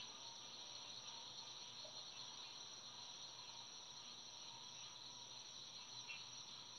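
Near silence: a faint steady high hiss of room tone, with a brief faint sound about six seconds in.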